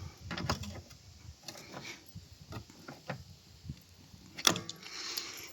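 A 10mm wrench clicking and scraping in short bursts on a tail light mounting screw, with a sharper metallic knock about four and a half seconds in and a brief rasp after it. The screw is tight and will not come loose.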